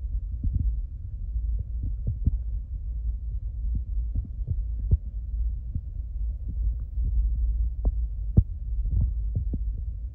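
Wind buffeting the microphone outdoors: a steady low rumble with irregular soft thumps.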